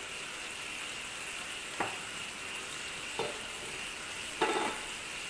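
Braised roast duck pieces sizzling and bubbling in a wok of sauce, a steady hiss. Three short knocks break in, the loudest about four and a half seconds in.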